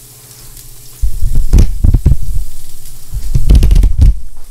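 Two loud bursts of low rumbling and rubbing noise on the camera's microphone as the camera is handled: one about a second in, the other near the end.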